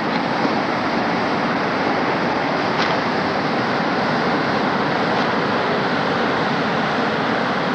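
Sea surf breaking on a pebble shore below the cliff, a steady rushing noise, mixed with wind.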